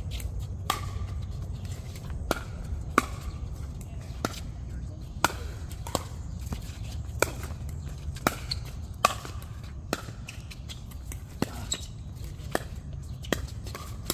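Pickleball rally: sharp pops of paddles striking the plastic ball, with bounces on the court, about one a second at uneven spacing over a steady low rumble.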